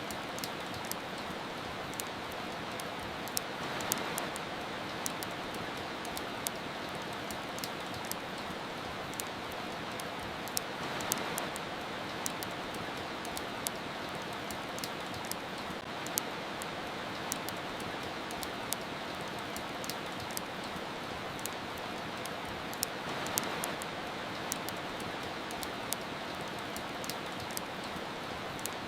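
Steady rain hiss with a wood fire crackling over it: many sharp, irregular pops. The rain swells briefly a few times.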